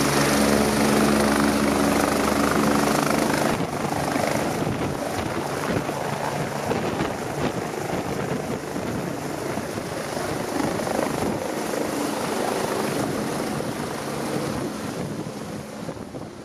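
BK 117 twin-turbine helicopter running on the pad with steady rotor and turbine tones. About three and a half seconds in, the sound changes abruptly to a loud, gusty rush of rotor noise as it lifts off and climbs away, fading toward the end.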